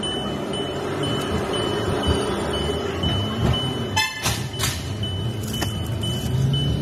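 Car driving up a garage exit ramp, heard from inside the cabin, with a steady electronic beep about twice a second. About four seconds in there is a short horn toot and a sharp crack.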